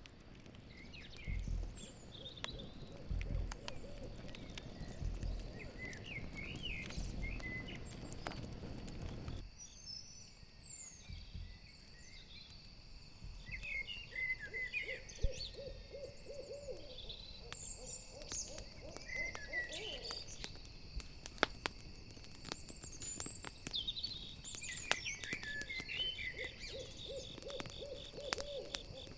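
Owl hooting in quavering series, three times about ten seconds apart, over a steady chorus of crickets. Campfire crackling with scattered sharp pops, and high chirps mixed in.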